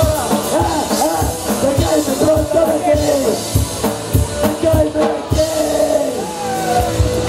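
Live rock band playing an instrumental passage: drum kit with a steady kick-drum beat under a melody line that bends up and down in pitch.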